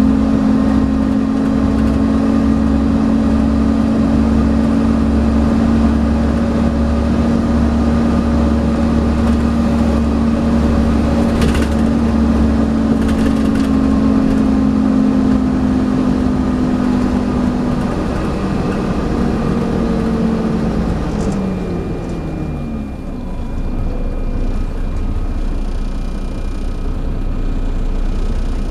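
Inside a Volvo B7TL double-decker bus: its six-cylinder diesel and the 'hoover', the vacuum-cleaner-like whine of its cooling fan, hold a steady pitch under way. After about twenty seconds the whine winds down in pitch and fades, leaving the quieter engine and road rumble.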